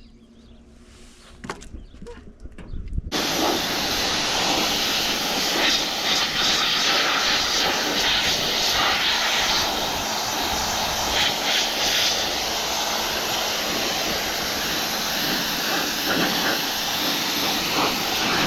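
Power sprayer spraying a hay baler: a loud, steady hiss that switches on abruptly about three seconds in, after a few faint clicks.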